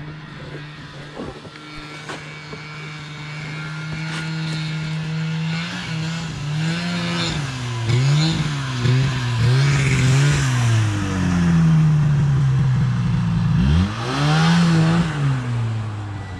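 Snowmobile engines running: a steady idle, then from about six seconds in an engine note that rises and falls over and over as a snowmobile is ridden close by. Near the end the pitch drops sharply and picks up again.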